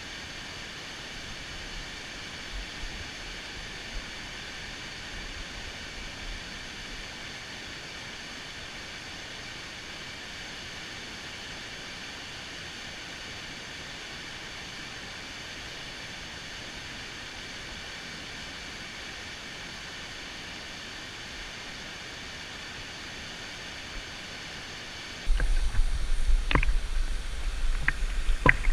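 Steady rushing hiss of a waterfall. About 25 seconds in, a much louder low rumble with crackling takes over.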